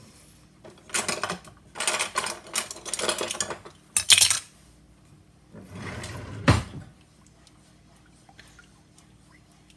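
Clatter and rustle of kitchen items being handled on the counter, in several bursts over the first four and a half seconds, then another burst with a sharp knock about six and a half seconds in.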